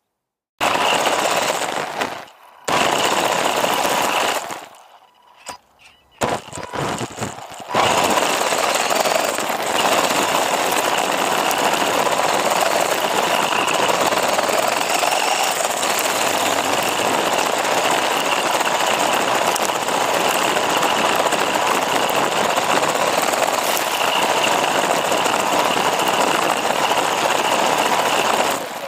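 Onboard sound of a WLToys 144001 1/14-scale electric RC buggy driven hard over loose dirt: a dense buzz of motor and drivetrain whine, chassis rattle and tyres on dirt. It cuts out briefly several times in the first eight seconds, then runs steadily.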